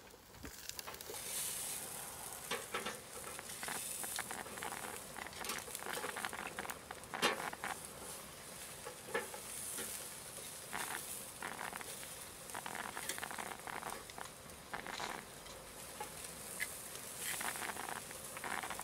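Pork back ribs sizzling on a grill over hot charcoal, the fat spitting and popping in dense, irregular crackles over a steady hiss.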